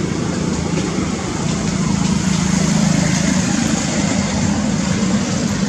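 A steady low engine hum from a motor vehicle, growing louder around the middle and easing off again, over a constant hiss.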